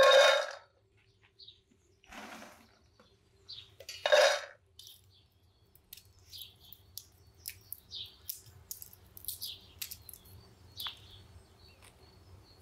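Handfuls of shelled walnut kernels dropped into an enamel bowl, rattling loudly right at the start and again about four seconds in. Small birds chirp in short high notes through the rest.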